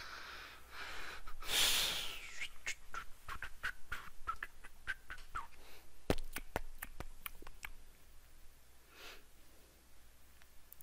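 A man breathing close to the microphone, with a loud breath or sniff about a second and a half in. A run of quick sharp clicks with small high blips follows for several seconds, and another breath comes near the end.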